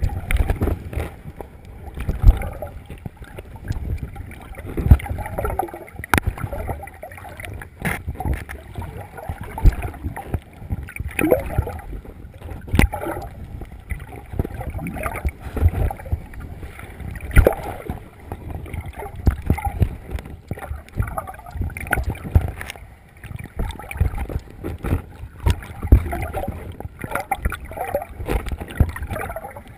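Water sloshing and splashing around a snorkeler, heard from just below the surface: muffled and low, with irregular thumps every second or two.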